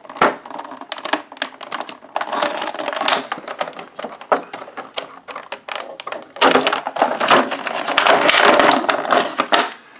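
Scissors snipping and plastic action-figure packaging crackling and snapping as the figure is cut free, in two busy spells about two seconds in and from about six seconds in.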